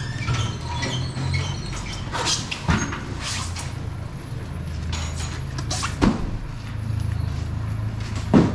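A steady low engine hum under a string of knocks and thuds as polystyrene foam boxes of fish are pulled off a truck's flatbed and set down, the louder knocks coming a little after two seconds in, around six seconds and just before the end.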